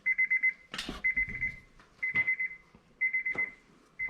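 Honda S2000 key-in-ignition warning chime: a high, rapidly pulsing beep in half-second bursts about once a second, with a few faint knocks between them. The chime sounds because the repaired door jamb switch now detects the open door with the key in the ignition.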